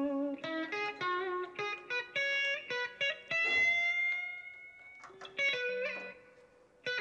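Background music: a guitar playing a melody of short plucked notes, with one long note held and bent slightly upward in the middle.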